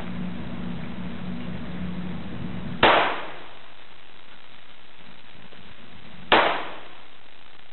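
Two pistol shots, about three and a half seconds apart, each a sharp crack with a short echo off the walls of an indoor range.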